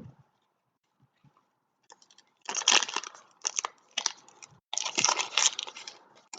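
Foil trading-card pack wrappers crinkling and tearing in several short bursts, after a soft thump at the start.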